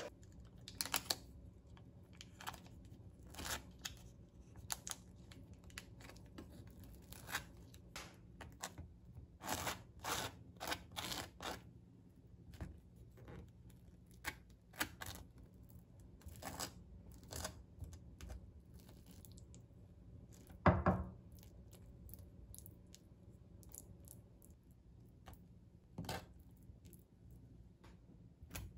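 A butter knife scraping across thick slices of white bread as it spreads butter and then blueberry jam: a run of short, irregular scrapes, with one louder knock about two-thirds through.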